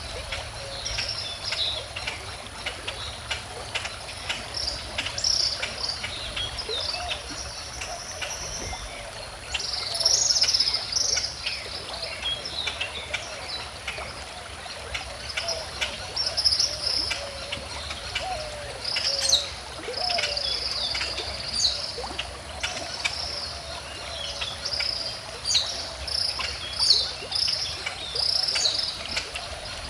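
Several songbirds chirping and singing in quick short phrases, busiest about a third of the way in and again through the second half, over the even rush of a gently flowing stream.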